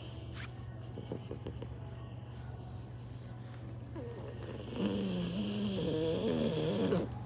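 French bulldog snoring: faint rattly breathing, then one long, louder snore with a wavering pitch from about five seconds in until shortly before the end.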